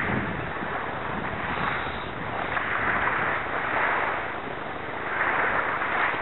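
Water splashing and lapping around a kayak, swelling every second or so, over a steady hiss of wind on the microphone.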